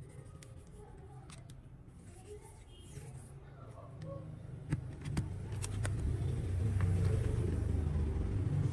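A low rumble that swells from about halfway through and stays loud to the end, with a few sharp clicks as a smartphone is handled.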